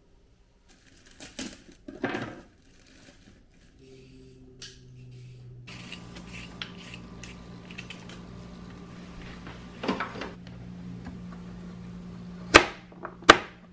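A carrot being prepared by hand: light scraping from a vegetable peeler, then a kitchen knife cutting it on a plastic cutting board, with a knock about ten seconds in and two loud, sharp knocks near the end. A steady low hum sits underneath from about halfway.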